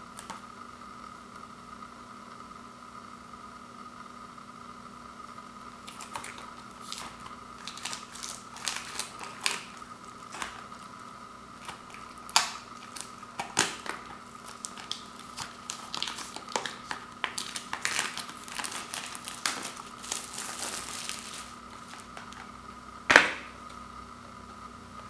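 Thin plastic shrink wrap crinkling and tearing as it is peeled off a Blu-ray case, in a long run of irregular crackles. Near the end the plastic case snaps open with one loud click. A faint steady hum sits underneath throughout.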